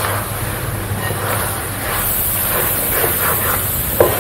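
A thick curry sizzling steadily in a metal pot while a spoon stirs through it, with soft scraping strokes and a sharp clink of the spoon against the pot near the end.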